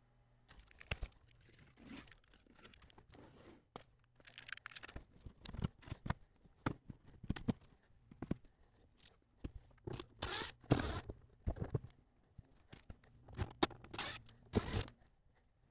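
Irregular clicks, knocks and rasping scrapes of hand work on RV kitchen cabinets: drawers being pulled out and the silicone caulk around the countertop being cut. The longest, loudest scrapes come about ten seconds in and again near the end.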